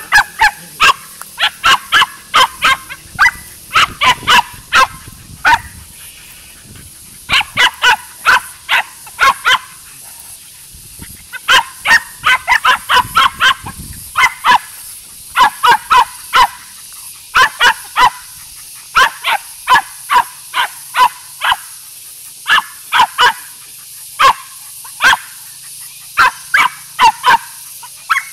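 Small dog barking at an animal hiding in a burrow: runs of sharp, high yaps, about three or four a second, broken by short pauses.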